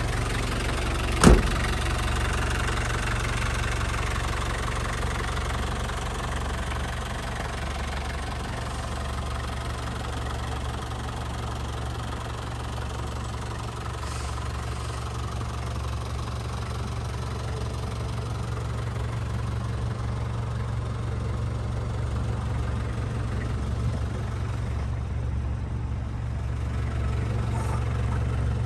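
1992 Nissan Caravan's TD27 four-cylinder diesel engine idling with a steady low hum. A single sharp click sounds about a second in.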